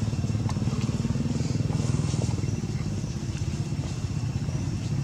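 An engine running steadily, with a fast even pulse.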